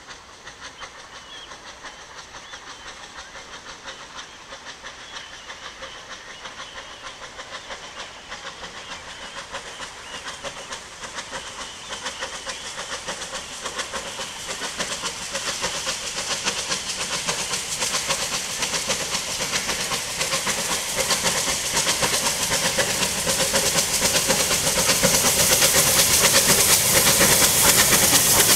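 Unrebuilt Bulleid Battle of Britain class steam locomotive 34067 Tangmere working hard with a train. Its quick exhaust beats and steam hiss grow steadily louder as it approaches and draws level.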